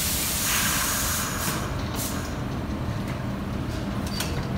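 New York City subway car (an R62A) standing at the platform with doors open. Its equipment runs with a steady low hum, and a hiss of released air starts about half a second in and lasts over a second, with a few sharp clicks.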